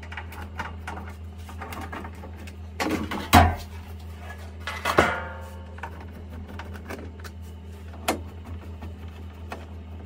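A screwdriver undoes the screws under a Baxi combi boiler's case, then the metal front casing is lifted off. There are small clicks and scrapes, a louder knock about three seconds in, and a ringing clatter of the panel about five seconds in, over a steady low hum.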